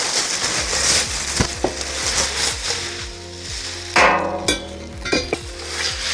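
Plastic packaging bags crinkling as they are pulled off metal barbecue parts, with scattered light knocks and a louder clatter of a metal part about four seconds in.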